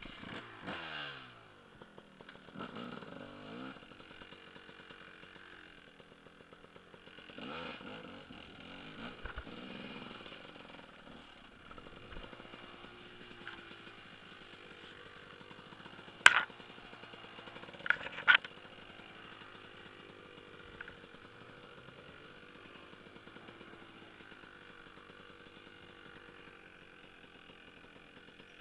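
Dirt bike engine revving in a few surges, then running steadily and fairly quietly. About halfway through come one sharp knock and, about two seconds later, two more close together; these knocks are the loudest sounds.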